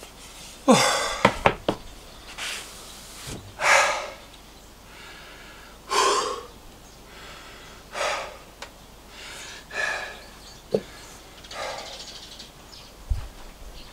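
A man breathing heavily, catching his breath after hard work: loud, noisy breaths about every one and a half to two seconds, the first with a falling sighing voice.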